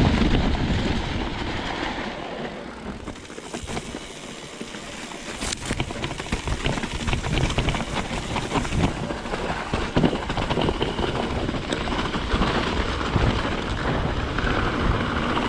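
Trek Slash 8 mountain bike ridden over a rough, wet trail: steady tyre and wind rush with many small knocks and rattles from the bike, easing off briefly a few seconds in.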